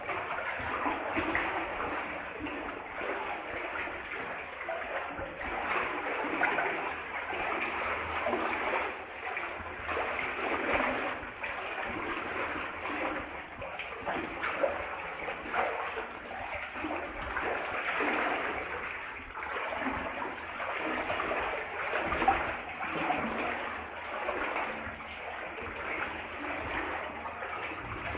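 Water sloshing and splashing around a person's legs as they wade through a flooded mine tunnel, swelling and dipping with each stride.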